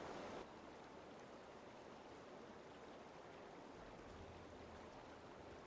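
Near silence: faint steady hiss of microphone and room noise.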